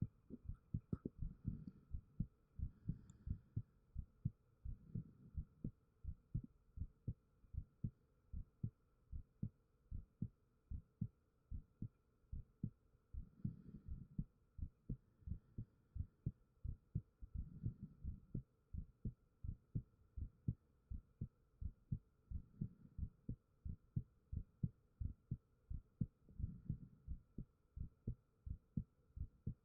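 A person's heartbeat picked up close with a 3Dio binaural microphone: low, even thumps in a steady rhythm, with a soft swell every four seconds or so and a faint steady hum behind.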